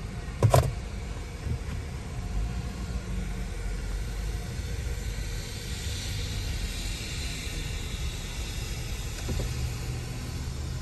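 A Chevy Tahoe's V8 running at low speed, heard from inside the cabin as a steady low rumble while the SUV creeps forward. There is a short, sharp knock about half a second in.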